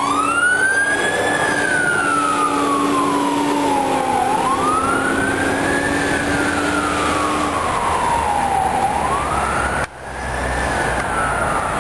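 Fire-rescue ALS unit's siren on wail: each cycle sweeps up quickly and then falls slowly, about every four seconds, three times in all. The sound drops out briefly near the end and the siren carries on.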